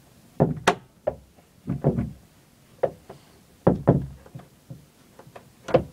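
Knocking and banging on a door: about six separate heavy knocks, some in quick doubles, at uneven intervals.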